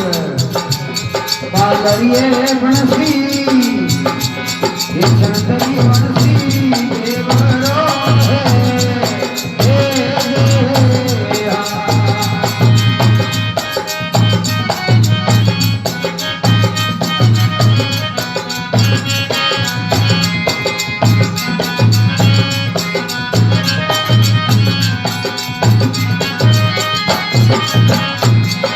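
Rajasthani folk bhajan music: a steady drum beat with rattling percussion, a singing voice in roughly the first third, then an instrumental passage of held melodic tones.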